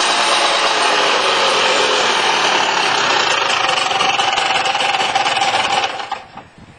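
Highly modified 1984 Honda ATC 250R two-stroke engine running steadily, then cutting off near the end.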